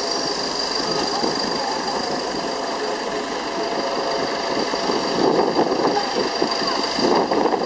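Aircraft engine running steadily at idle, with a steady high-pitched whine over a constant rumble, and a murmur of crowd voices underneath.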